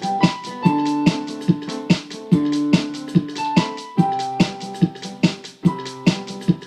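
Music: an electric-piano or keyboard melody of short sustained notes over a steady percussive beat.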